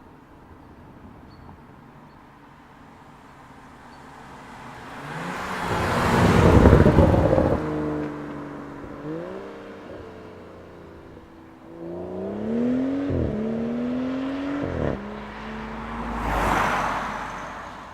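BMW F30 335i's turbocharged inline-six through a Remus full exhaust passing by: a loud rush of engine and tyres peaks about six to seven seconds in. The exhaust note then climbs and drops back sharply several times as the revs rise and fall, and a second passing rush follows near the end.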